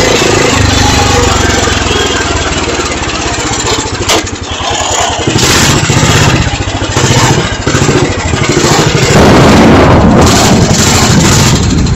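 Small engine of a ride-on vehicle running loudly as it drives on a wet street. The sound rises and falls through the second half as the vehicle turns off the road.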